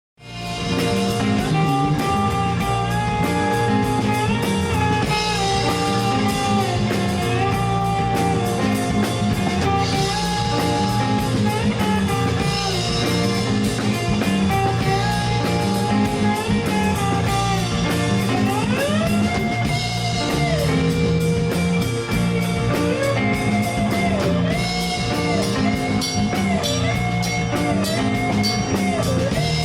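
A band playing, led by a slide guitar whose notes glide up and down between held pitches, over drums and a low bass line.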